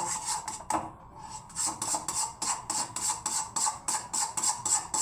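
A spoon scraping round a kadhai in brisk, regular strokes, with a short break about a second in, as thick besan halwa is stirred and cooked down until the ghee separates.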